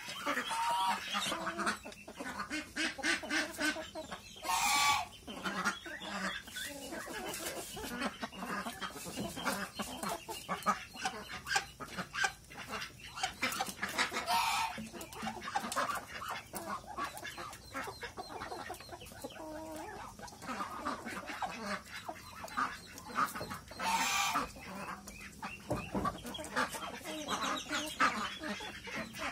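Chickens clucking as they feed on cassava leaves, with many quick taps and rustles from pecking, and three louder, sharper calls spread through the stretch.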